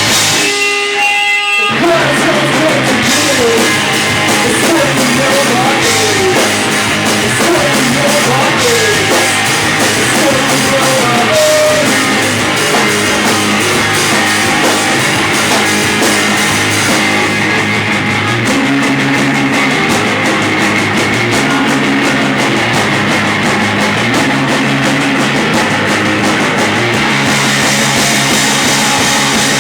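Rock band playing loud, with electric guitar and drum kit. The band stops briefly near the start, leaving a few held notes, then comes back in full, with sliding guitar lines over the next several seconds.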